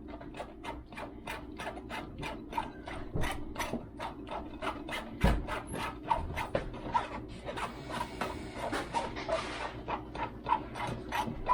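A spoon scraping round and round in a mesh strainer, pressing thick blended chili paste through the wire, in quick rhythmic strokes of about four a second. One dull knock about five seconds in.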